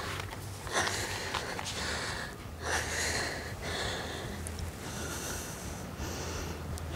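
A young woman panting hard through nose and mouth, about one deep breath a second, out of breath after sprinting all-out up a slope.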